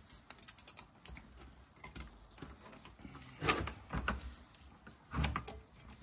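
Small metal clicks and scrapes of new brake pad clips being pressed and snapped into a brake caliper bracket, with a few louder knocks of the bracket being handled about three and a half and five seconds in.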